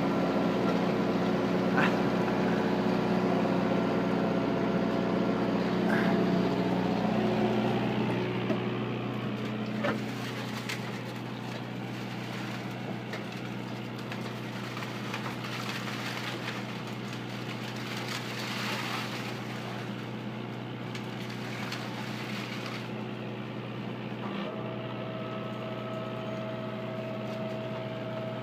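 Oyster boat's engine-driven hoist running with a steady mechanical drone while hauling up a rope of hanging oysters. The drone drops in level about eight seconds in, a single knock comes at about ten seconds, and a higher steady whine joins near the end.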